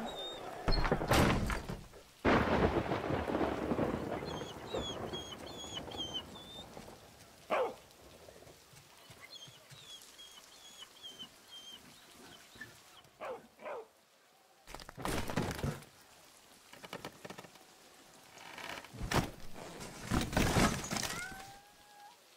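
Rainstorm with thunder: loud rolls near the start and again later, over a steady patter of rain. A few short runs of faint high animal cries come between the thunder rolls.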